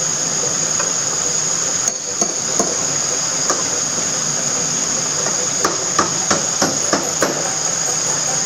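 Shimano Stradic Ci4+ spinning reel and rod clicking and ticking as a small hard lure is twitched and reeled in, the clicks coming quicker past the middle. Behind it runs a steady high-pitched buzz of summer insects.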